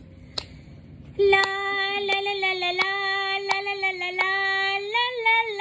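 A woman's voice holds one long sung note from about a second in, rising a little near the end, while she claps her hands to a steady beat, six claps about two-thirds of a second apart.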